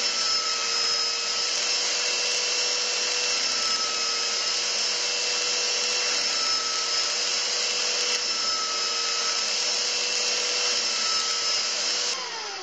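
Belt sander running steadily with a constant motor whine while a small wooden block is pressed against the belt. Near the end it is switched off and starts to wind down, the whine falling in pitch.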